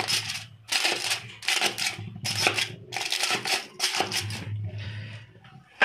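Aluminium foil crinkling and crackling in irregular bursts as small drain holes are poked through it with a pointed tool.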